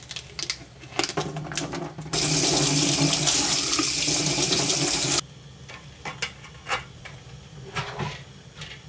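Plastic film on a tofu pack crinkling and clicking as it is peeled open, then a kitchen faucet running water over the tofu in a stainless steel sink for about three seconds, stopping abruptly. After that come scattered light clicks and drips as the tofu is set down to drain.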